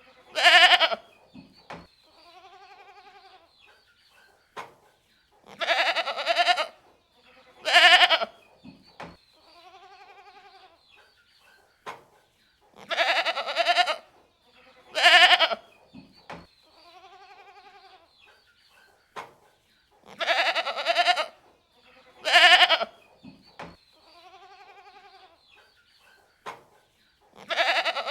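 Goats bleating: two loud bleats in quick succession followed by a softer, lower call. The same sequence repeats about every seven seconds, four times over.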